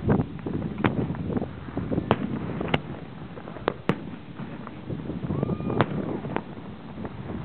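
Aerial firework shells bursting: a string of sharp bangs at irregular intervals, roughly one a second, over a continuous low rumble.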